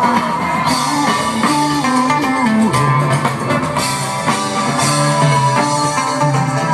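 Live band music: electric guitar and bass over a drum kit, an instrumental passage between sung lines during a sound check.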